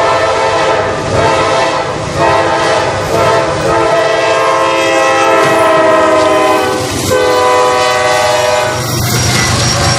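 Train air horn sounding a chord of several tones in a series of long warning blasts, each broken off briefly before the next, over the rumble of the approaching train.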